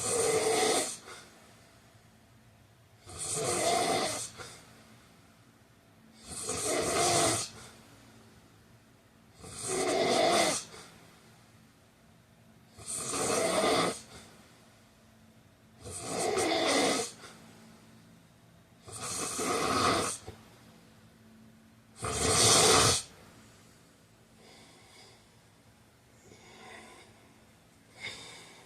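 A man snoring, one loud snore about every three seconds, eight in a row. Near the end the snores drop to soft, faint breaths.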